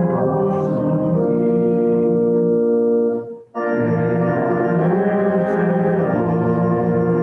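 Organ playing held chords, stopping briefly about three and a half seconds in, then going on.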